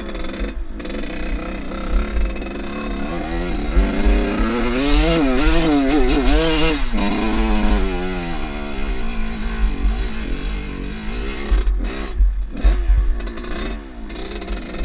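Off-road motorcycle engine revving up and down several times, the pitch swinging repeatedly, loudest in the middle, with wind rumbling on the microphone.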